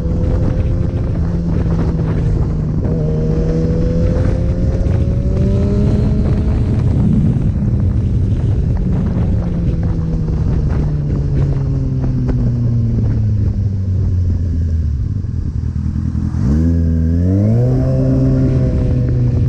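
Inline-four sport motorcycle engine under way, with wind noise: the engine pitch holds, sinks slowly as the bike rolls off the throttle, then climbs sharply about three-quarters of the way through as it accelerates hard again.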